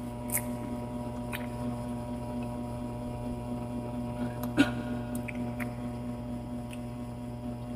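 Steady electrical hum, with a few short clicks and smacks of someone chewing juicy pineapple, the sharpest about four and a half seconds in.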